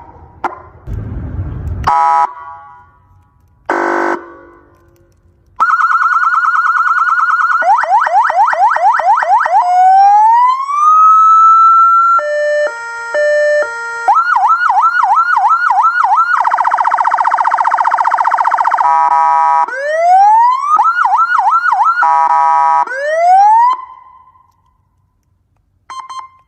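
12V 400W car police siren and speaker demonstrating its tones: two short horn blasts, then a steady tone, fast rising yelps, a slow rising wail, a stepped two-tone hi-lo and a rapid warble, switching from one to the next. It stops a couple of seconds before the end, and a short blip follows.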